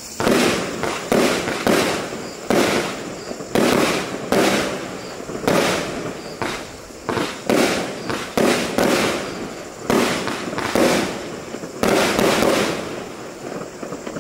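WCKD Six firework battery firing a rapid string of shots that launch and burst in the air, about one to two bangs a second at uneven spacing, each followed by a fading crackle of stars.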